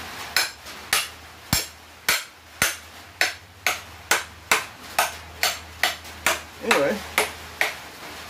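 Repeated hammer blows on a bent half-inch round steel bracket, about two a second, each a sharp metallic clank with a short ring.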